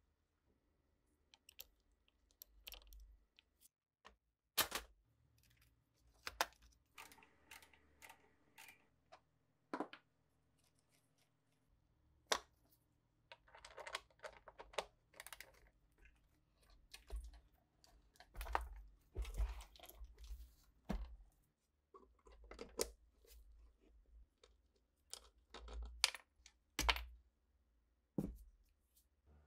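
Hand tools working on the parts of an old scale during disassembly: scattered sharp clicks and knocks, with short runs of scraping and rattling.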